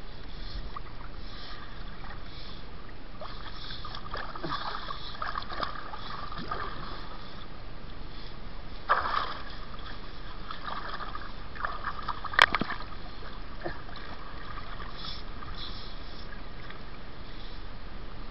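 Water sloshing and splashing as people and an elephant move about in it, with a louder splash about nine seconds in and a sharp click about twelve seconds in.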